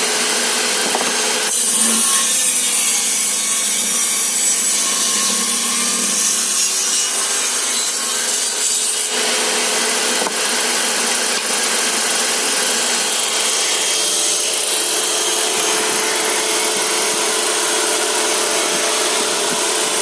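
Electric circular saw running and cutting wood: a steady motor whine under the noise of the blade in the wood.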